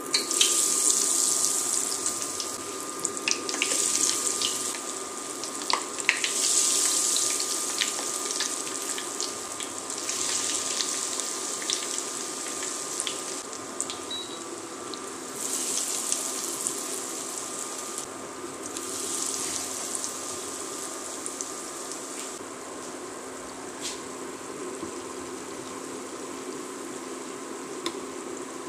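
Breaded potato balls deep-frying in hot oil in a steel pot, sizzling and crackling. The sizzle surges each time another ball is dropped in, about six times over the first twenty seconds, then settles to a steadier, quieter crackle.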